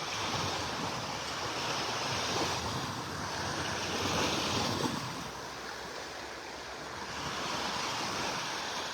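Surf breaking and washing up on a sandy beach, a steady rush that swells and eases every couple of seconds.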